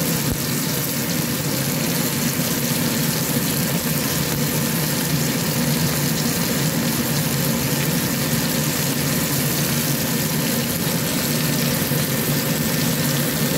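Cod steak frying in oil in a nonstick pan: steady sizzling over a steady low hum.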